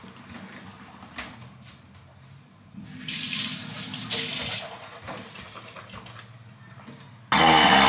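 Kitchen tap running for a second or two about three seconds in, then a short, loud burst near the end.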